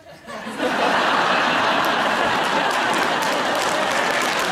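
Studio audience applause, swelling quickly in the first second and then holding steady.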